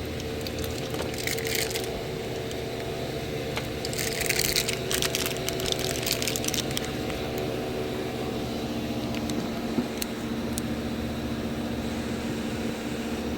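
Metal parts being handled at a workbench: bouts of scraping and clicking as the old and new idler pulley bearings and the pulley are moved about, with a few single clicks, over a steady background hum.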